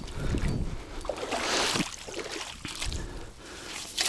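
Water sloshing and splashing unevenly at close range, as a large hooked fish is played in near the bank.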